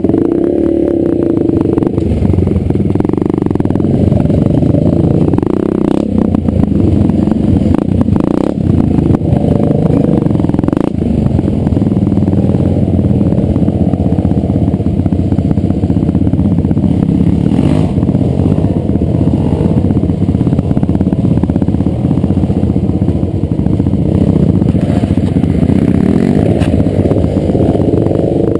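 Dirt bike engine running steadily, picked up on the bike itself, with a few sharp knocks and rattles as it rides over the rough trail.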